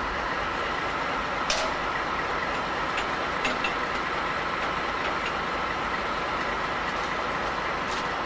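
Diesel locomotive idling steadily, with a few short sharp clicks about one and a half and three seconds in.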